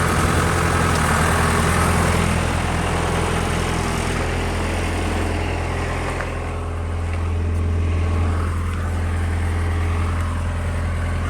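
Engine of the vehicle dragging a truck cab on straps, running steadily at low speed. A rushing noise sits over the engine for the first half and fades after about six seconds.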